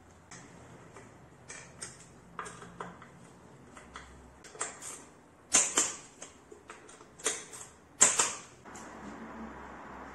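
Bicycle crankset and chain being handled: irregular metal clicks and clacks, with three sharper knocks in the second half. A steady hiss comes in near the end.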